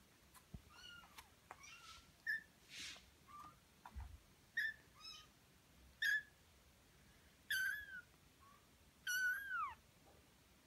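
A four-week-old Birman kitten mewing over and over: about ten short, high-pitched mews, the last two longer and sliding down in pitch at the end.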